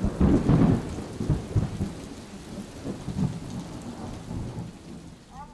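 Thunderstorm sound effect: rain with rolling thunder, loudest in the first second and dying away. Near the end a sustained musical tone slides in.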